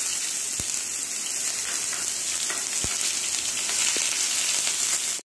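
Chopped onion sizzling in hot oil in a frying pan as it is stirred with a spatula, a steady high hiss with a few light knocks of the spatula against the pan.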